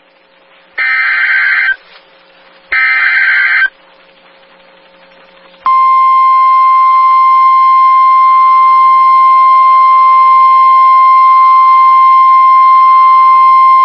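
NOAA Weather Radio Emergency Alert System activation: the last two of the three screeching SAME digital header bursts, each about a second long and a second apart. After a pause of about two seconds, the steady single-pitch 1050 Hz warning alarm tone starts about six seconds in and holds. The tone signals that a warning-level alert, here a severe thunderstorm warning, is about to be read.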